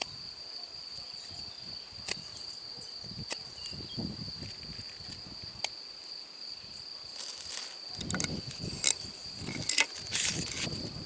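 An insect trilling steadily at a high pitch throughout. Scattered clicks run through it, and from about eight seconds in there is irregular rustling and knocking from handling.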